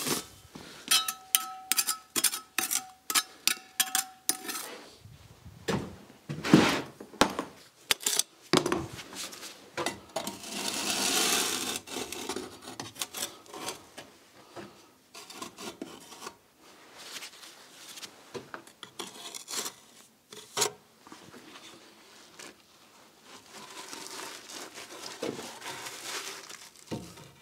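Metallic clinks with a ringing tone for the first few seconds, then scraping and knocks from laying cellular concrete blocks: cement-based glue being spread on the blocks and the blocks set into place.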